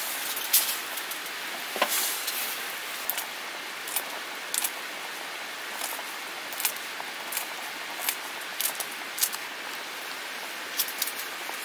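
A pot of sundaeguk (Korean blood-sausage soup) boiling on a camping stove: a steady bubbling hiss with irregular small pops and clicks scattered through it.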